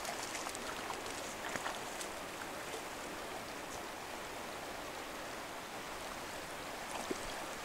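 Steady rush of a shallow river flowing and rippling over gravel, with a couple of faint ticks.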